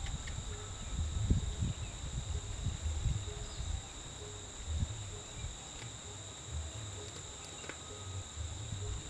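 Insects droning steadily in two high, unbroken tones, over irregular low rumbling on the microphone.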